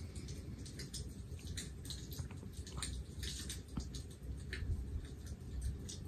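Crackling log-fire sound from a fireplace video played on a TV: irregular small pops and snaps over a soft, steady low rumble.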